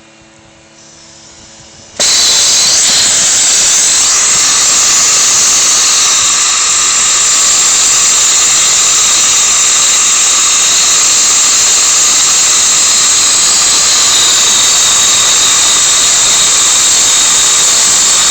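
Turbo torch flame hissing loudly and steadily, switching on abruptly about two seconds in, while a pinhole in a gas tank is brazed with silver brazing rod.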